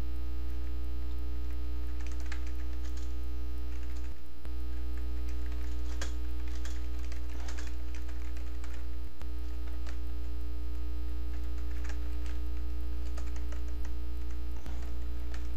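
Computer keyboard typing, scattered runs of key clicks, over a steady electrical mains hum that is the loudest thing throughout.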